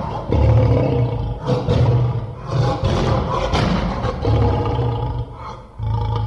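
A woman roaring like a lion, a series of loud roars with short breaks between them.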